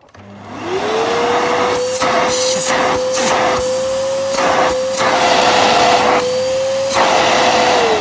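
Kärcher bagged canister vacuum cleaner switched on: the motor spins up with a rising whine within about a second, then runs steadily with a loud rush of air. The air noise cuts out briefly several times as a hand covers the hose inlet to test the suction. Near the end the motor is switched off and its whine begins to fall.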